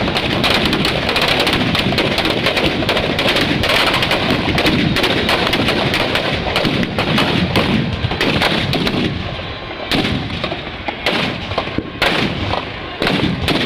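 Firecrackers packed inside burning Dussehra effigies of Ravana and his kin going off in a rapid, continuous crackle of bangs. The bangs thin out to separate loud cracks in the last few seconds.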